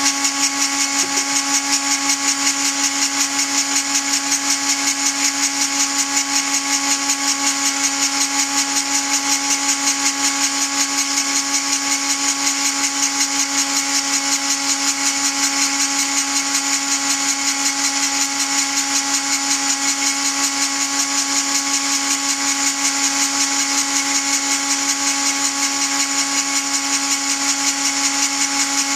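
A Dremel-type rotary tool spins a belt-driven tool post grinder at high speed while a 7x mini lathe turns its chuck. The grinding point works on the chuck jaws, giving a steady high whine and hiss with a fast, even flutter.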